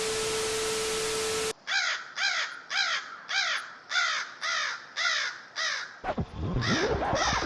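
Crows cawing over and over, about two harsh caws a second. They start after a loud burst of static hiss with a steady tone that cuts off sharply, and other jumbled sounds join near the end.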